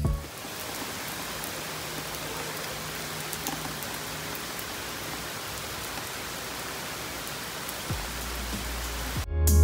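Steady rain falling on trees and grass: an even hiss with scattered faint drop taps.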